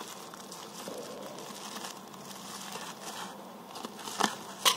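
Plastic bubble-wrap packaging rustling and crinkling as it is handled and cut open. Near the end come two sharp clicks, the loudest sounds.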